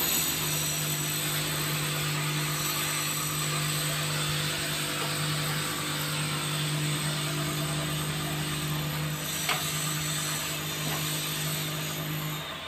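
A machine's steady hum over a rushing noise. It sets in just after the start and cuts off shortly before the end.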